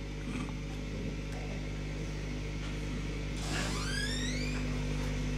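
Experimental noise electronics played through a mixing desk: a steady electronic hum of several held low tones, slowly growing louder, with a rising whistling sweep about three and a half seconds in.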